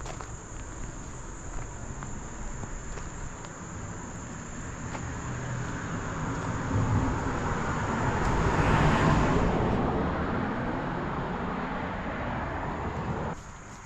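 A vehicle passes by: its road noise swells to a peak about nine seconds in and fades away, over a steady high drone of insects. The sound drops off abruptly near the end.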